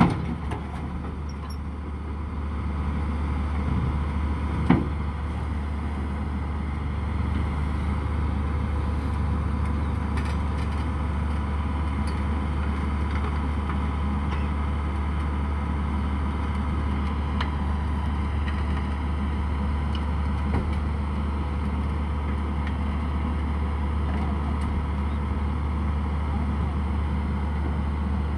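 Komatsu hydraulic excavator's diesel engine running steadily under load as it hauls itself up a ramp onto a truck deck, with a steady low hum and a faint steady whine. A single sharp knock about five seconds in.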